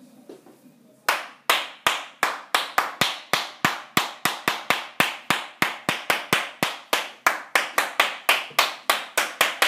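One person clapping their hands in a steady, even rhythm of a little over three claps a second, starting about a second in.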